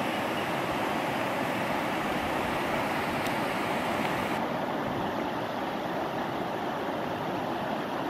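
Steady rush of river water pouring over a shallow rapid, a broad even hiss that turns slightly duller a little past halfway.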